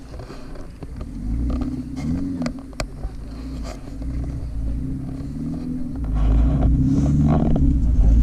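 Off-road 4x4's engine revving up and down several times over a low rumble, which grows louder about six seconds in. A few sharp knocks come near the middle.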